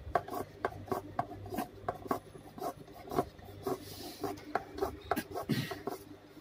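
Leatherette piping strip rubbing and scraping as it is handled and pulled along the sewing table. A run of light clicks, about three a second, and a couple of short scrapes near the middle and end, over a faint low hum.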